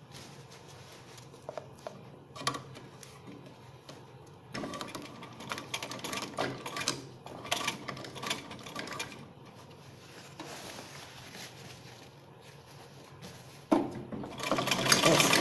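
Sewing machine stitching through fabric, in two runs: a lighter run of rapid even strokes from about four and a half seconds to ten, and a much louder, denser run starting near the end. A few faint clicks of the fabric being handled come before.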